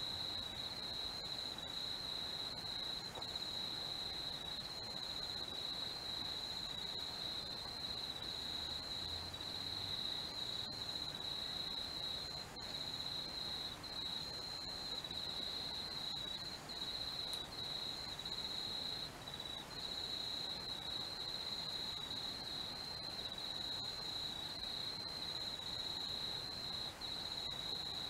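Night insects trilling in one continuous high-pitched chorus, broken by a few brief gaps.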